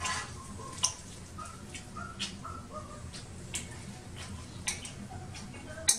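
Fork and knife clicking against a plate while cutting food, sharp clicks about once a second, over a steady low hum. Faint short squeaks can be heard between the clicks.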